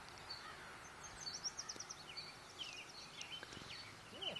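Small songbirds chirping, many short high notes in quick runs, over a faint steady background hiss.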